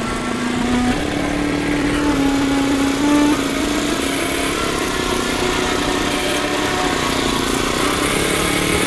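Small petrol engine driving a sugarcane juice press, running steadily with a slight shifting in pitch as the rollers crush the cane.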